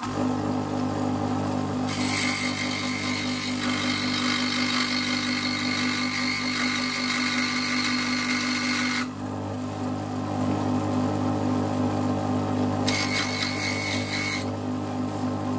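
Scroll saw running steadily with a constant hum, its blade cutting through a wooden block. The higher-pitched cutting noise sets in about two seconds in, drops away around nine seconds, and returns briefly near the end while the motor keeps running.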